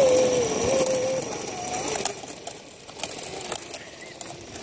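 Electric drive motor of a radio-controlled rock crawler whining under heavy load as its wheels spin, the pitch wavering up and down, cutting out about a second in. After it stops there are only faint scattered ticks.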